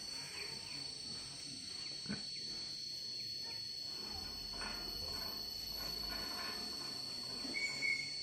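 Pigs grunting now and then over a steady high insect whine, with a brief high-pitched call near the end.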